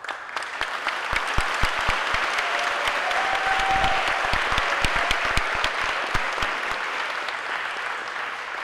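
Audience applause that starts suddenly, with a few louder claps close by, then slowly tapers off.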